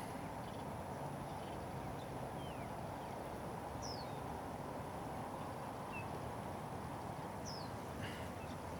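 Steady outdoor background hiss with a few short, downward-sliding bird chirps scattered through it and a faint continuous high tone.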